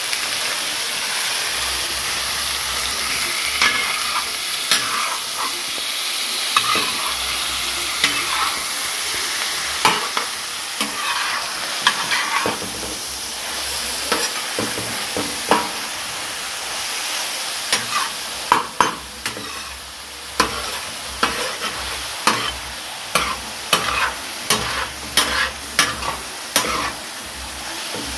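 Mutton chops and chopped garlic sizzling in oil on a large iron tawa while a metal spatula stirs and turns them. The spatula scrapes and clacks against the iron, and the clacks come thicker and quicker in the second half.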